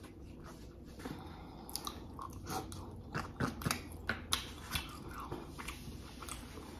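Close-miked chewing of a mouthful from a Chipotle chicken al pastor bowl, with irregular soft clicks and smacks of the mouth.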